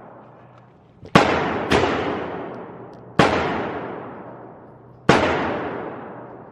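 Four gunshots, the first two about half a second apart and the others spaced a second and a half to two seconds apart. Each shot is followed by a long echoing decay.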